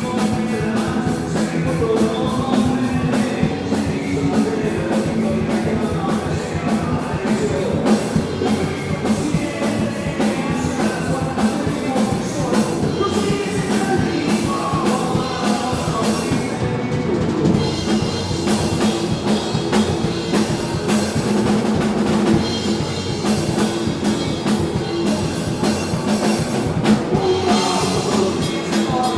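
Rock band playing live, the drum kit to the fore with a steady driving beat.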